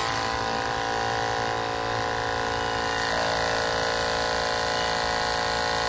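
Small portable air compressor running steadily, an even motor hum at an unchanging pitch, as it pumps air into a large party balloon.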